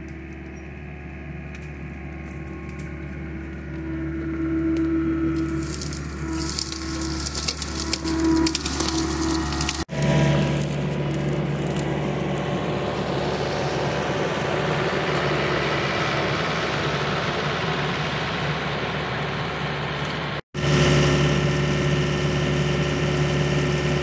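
Compact track loader's engine running steadily while its hydraulic auger attachment drills pier holes, with a stretch of crackling and crunching between about 6 and 9 seconds. The sound drops out briefly twice, near 10 seconds and again about 20 seconds in.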